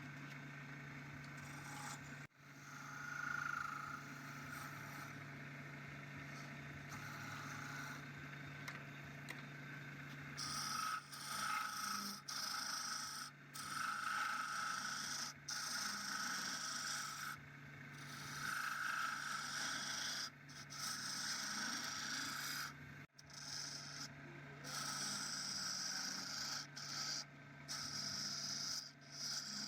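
Repeated hand scraping and rubbing strokes, each one to two seconds long, becoming regular and louder about ten seconds in, over a steady low hum.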